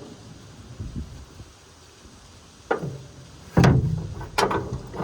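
Three sharp metal knocks, close to a second apart, from a wrench being struck to break loose a seized lock nut on a Gleaner L2 combine.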